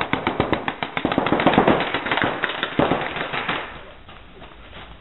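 Rapid paintball marker fire shooting reball balls, many quick pops in close succession that thin out and stop about three and a half seconds in.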